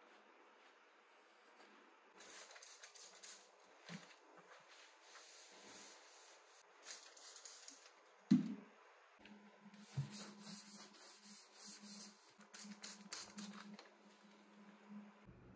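Kitchen cleaning noises: two spells of quick, crisp rubbing strokes, a single knock about eight seconds in, and a low steady hum through the second half.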